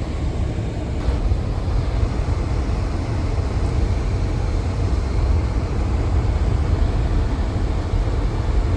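Car driving slowly on snowy roads, heard from inside the cabin: a steady low rumble of engine and tyres.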